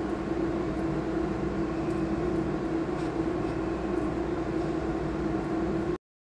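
Steady mechanical hum with one constant tone and a low rumble, with faint ticks over it. It cuts off suddenly near the end.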